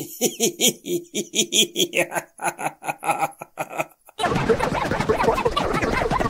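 Laughter sound effect: a voice laughing in rapid repeated "ha"s, about four or five a second. After a brief gap about four seconds in, a denser, steadier burst of laughter follows.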